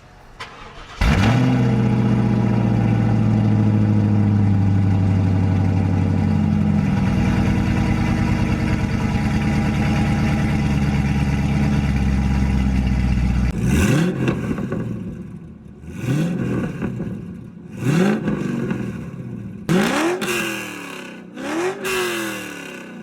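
C5 Corvette's V8 with long-tube headers and a catless X-pipe exhaust, starting from cold: it catches suddenly about a second in and runs at a loud, steady fast idle. After about 13 seconds it drops back and is revved five times, each rev rising and falling.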